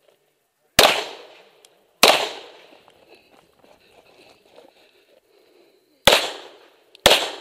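Four semi-automatic pistol shots: two about a second apart, then after a pause of about four seconds two more about a second apart, each dying away over about half a second.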